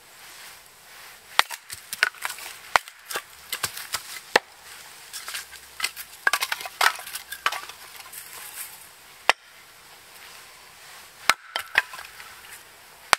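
Hatchet splitting a small log into kindling on a wooden chopping block: a series of sharp, irregularly spaced wooden chops and knocks, with a busier run of them about six to seven and a half seconds in.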